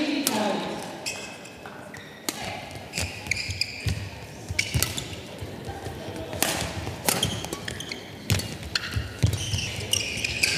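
Badminton rally: a string of sharp racket strikes on the shuttlecock, roughly one a second, with short high squeaks of shoes on the court floor between them.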